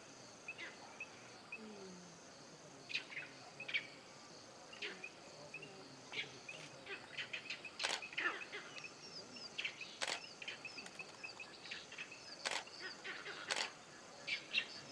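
Evening bush ambience: a steady high insect drone with birds chirping over and over. A few sharp clicks come in the second half.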